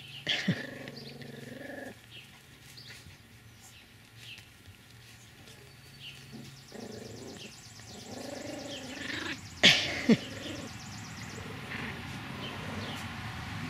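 Cavapoo and miniature schnauzer puppies growling at each other in a tug-of-war play fight over a sock, in rough stretches, with sharp yips about half a second in and twice near ten seconds in.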